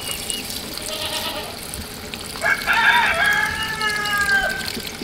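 A rooster crows once, starting about halfway through: a long held note that drops at the end.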